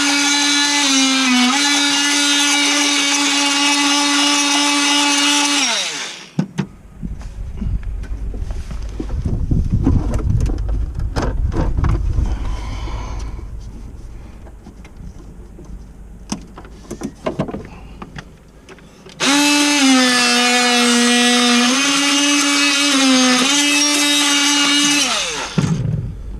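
Electric drill motor running twice for about six seconds each, its whine dipping briefly in pitch a couple of times as it loads up and winding down when released. Between the two runs come low handling rumble and scattered knocks.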